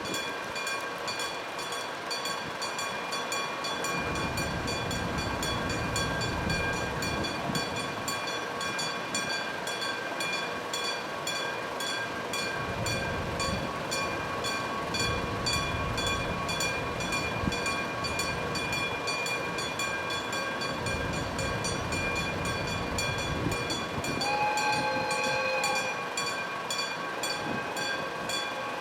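An electric-bell level crossing rings continuously with rapid, even strikes while a train passes over it: a diesel locomotive hauling unpowered subway cars, their wheels rumbling from about four seconds in until about twenty-one seconds, with a brief break in the middle. Near the end the locomotive gives a short horn blast.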